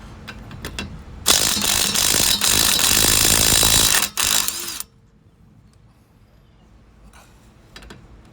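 Cordless impact wrench with a 21 mm socket hammering on a wheel lug nut for about three seconds, then a brief second burst, spinning the nut off.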